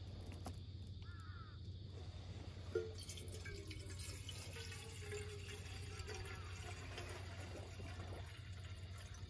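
Water poured from a plastic bottle into a metal gooseneck kettle. The pour starts about three seconds in with a light knock and runs on steadily to the end.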